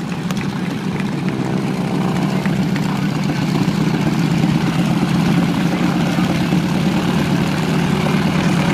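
A steady engine drone that grows gradually louder.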